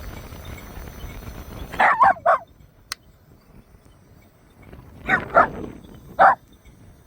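A dog barking: three barks about two seconds in, then three more starting around five seconds in. A steady low running noise stops just before the first barks.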